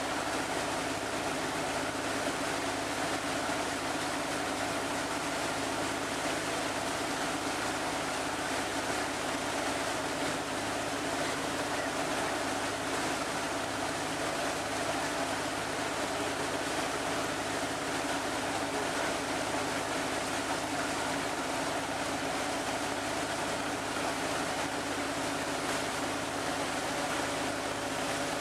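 A boat's engine running steadily under way, with the rush of river water along the hull.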